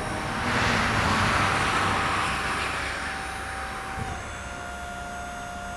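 Hydraulic drive of a truck-mounted crash attenuator running as the attenuator cushion is lowered, a steady whine over a rush of hiss. About four seconds in there is a click and the whine drops slightly in pitch as the cushion comes to rest level.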